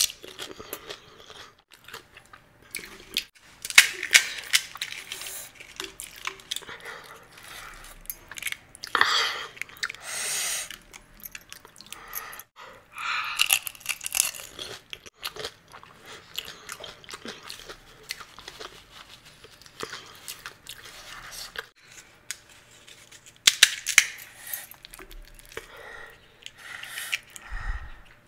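Close-up crunching and chewing of pani puri: the crisp, hollow fried puri shells, filled with spiced water, cracking between the teeth as they are eaten one after another.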